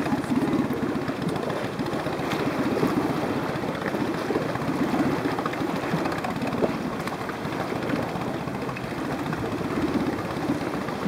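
A boat's motor idling steadily, with a fast, even low pulse.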